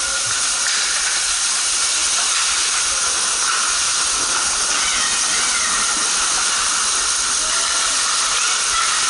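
A steady, even hiss of ice hockey rink ambience, heard from the players' bench, with no distinct knocks or strokes. Faint voices carry in the background.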